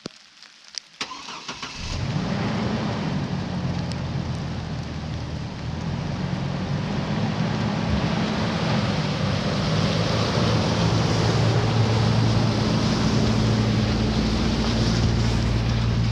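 Pickup truck engine starting after a few clicks, then running steadily as the truck pulls away towing a trailer loaded with firewood. The engine sound slowly grows louder.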